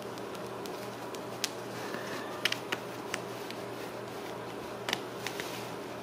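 A few faint, short clicks and scratches from a Ragdoll kitten's claws catching on a fabric cat bed as it climbs, over a steady low room hum.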